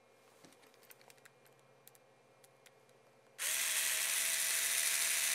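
Light clicks of a small screw and sealing washer being handled. About three and a half seconds in, a handheld electric screwdriver starts and runs steadily with an even motor whine, turning the screw to seat its gasketed sealing washer.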